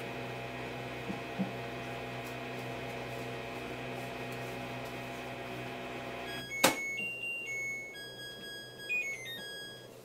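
Samsung front-loading washing machine running with a steady motor hum until about six and a half seconds in, when the hum stops with a loud clunk. A tune of electronic beeps in stepped notes then plays: the machine's end-of-cycle melody.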